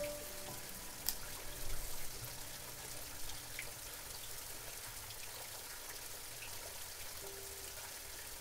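Steady hiss of running water, with a few light clicks a second or two in. A few soft music notes sound at the start and again near the end.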